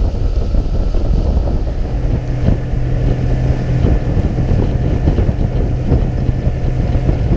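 Boat motor running underway, a steady low drone that settles in about two seconds in, with wind buffeting the microphone.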